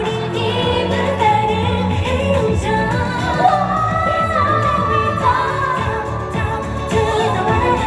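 Live pop song performance: a woman sings the melody over an amplified backing band track.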